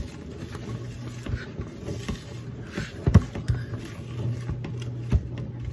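A whisk and spoon stirring thick brownie batter in a mixing bowl: irregular scraping with soft knocks against the bowl, and a sharper knock about three seconds in. A low steady hum runs underneath.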